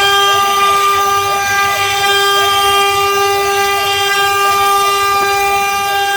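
CNC engraving machine's spindle motor running at constant speed, a loud, steady whine that cuts off suddenly at the end.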